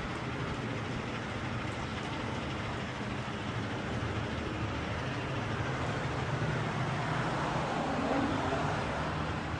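Steady low engine hum with a rushing hiss, like a running vehicle, swelling slightly in the middle.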